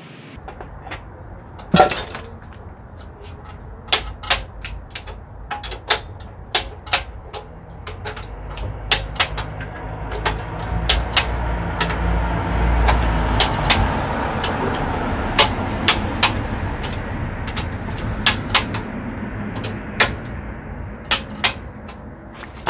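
A click-type torque wrench gives irregular sharp metallic clicks as the cylinder head bolts are tightened to their set torque, over a low rumble that swells in the middle.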